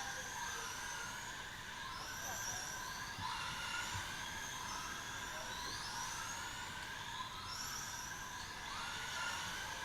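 Several RC Big Block Modified race cars running together. Their motors whine, overlapping, each one rising in pitch and falling back again and again as the cars speed up and slow around the track.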